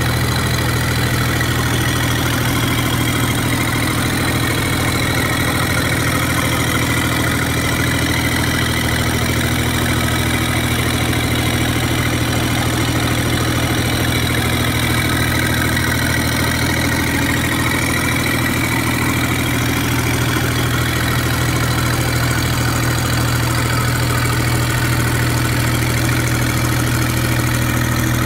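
Genelite GK15 diesel generator set, driven by a Kubota D1703 three-cylinder industrial diesel, running at a steady, even speed with a constant low hum and a hiss of mechanical noise above it.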